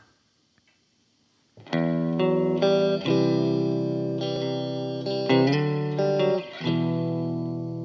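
Background music: after near silence, a guitar-led intro of sustained chords starts about one and a half seconds in.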